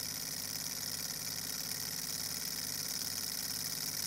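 Small Stirling hot-air engine model running steadily: an even, fast mechanical whir and rattle of its spinning flywheel, piston and linkage, over a steady high hiss.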